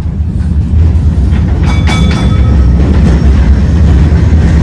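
Heritage electric tram running on its rails, heard from inside the car: a loud, steady low rumble of wheels and running gear, with a few brief higher clicks and a short squeak about two seconds in.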